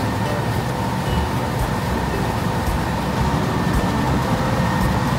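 Heavy machinery engine running steadily: a dense, unbroken engine noise with a faint steady whine above it.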